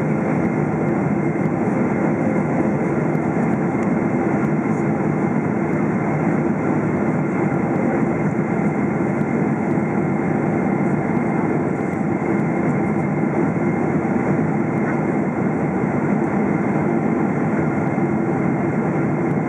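Steady noise inside the cabin of a Boeing 777-300ER on its approach: its GE90 engines and the air rushing past the fuselage, unchanging throughout, with a few faint steady tones on top.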